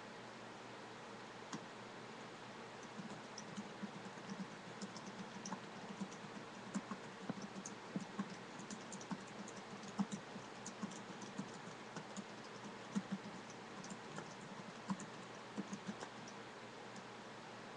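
Typing on a computer keyboard: irregular keystrokes, only one or two in the first few seconds, then a steadier run of clicks, over a faint steady hiss.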